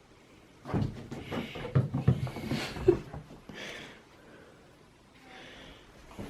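A quick run of knocks and scuffling thumps lasting about two seconds, then a few short, softer rustling sounds.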